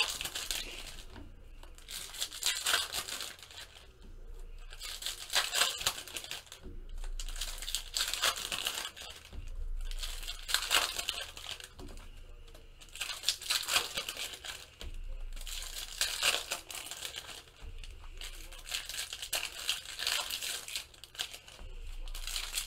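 Foil wrappers of 2016 Topps Chrome baseball card packs being torn open and crinkled, one pack after another, in crackly bursts every few seconds.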